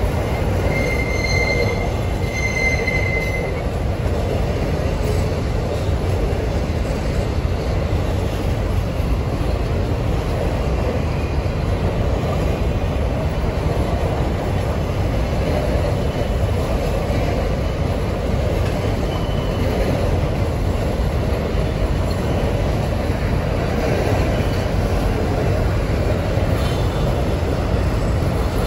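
Freight train of covered hopper wagons rolling past on a curve: a steady rumble of wheels on rail. In the first three seconds a high wheel squeal comes and goes, typical of wheel flanges rubbing the rail on the curve.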